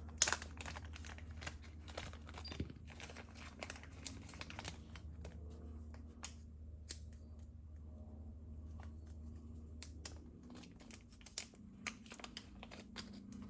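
Plastic parts packaging being torn open and crinkled by hand, in many irregular crackles and small clicks.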